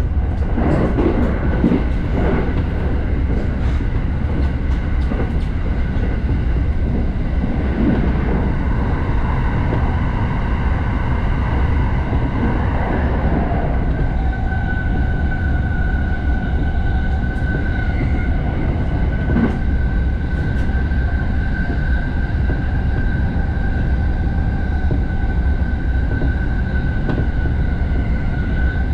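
Inside a JR Sobu Line Rapid electric commuter train running at speed: a steady low rumble, with clicks from the wheels over rail joints in the first few seconds. About halfway through, a steady high whine sets in and holds.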